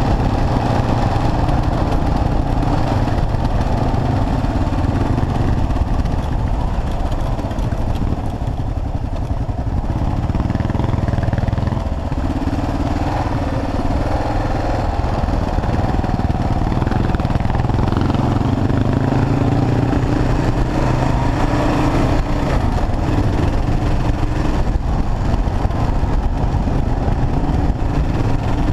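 Kawasaki KLR650's single-cylinder four-stroke engine running under way on a dirt road. It pulls steadily, with the pitch rising and falling as the throttle changes.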